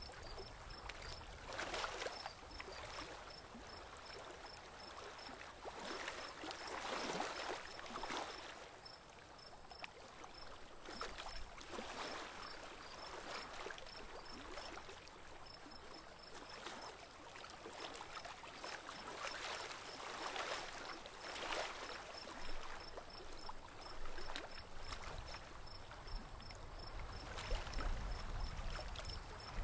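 Water swashing and lapping against the hull of a small boat as it glides slowly along a calm channel, swelling and fading every few seconds. A faint high chirp repeats about three times a second, pausing now and then.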